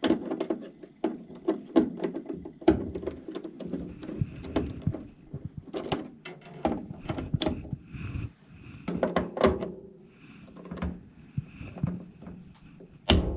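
Irregular knocking, clicking and clattering of hands and tools working on furnace parts, with one loud knock near the end.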